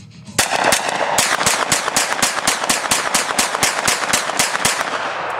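Kel-Tec Sub-2000 .40 S&W semi-automatic carbine fired in rapid succession as fast as the trigger can be pulled, about five shots a second. It feeds from a 31-round Glock 22 magazine. The string starts about half a second in and pauses briefly near the end.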